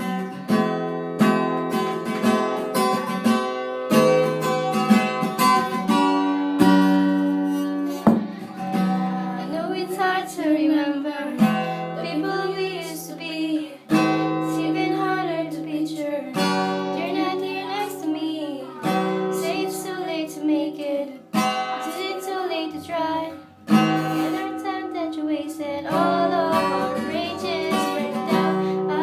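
Acoustic guitar strummed in chords accompanying a pop song, with a solo voice singing the melody from about eight seconds in.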